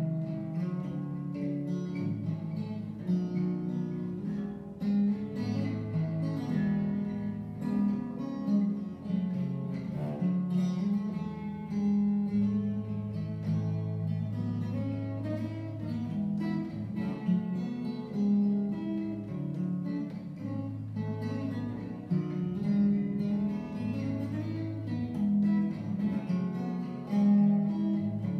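Solo steel-string acoustic guitar played fingerstyle, a steady bass line under a picked melody, with no singing.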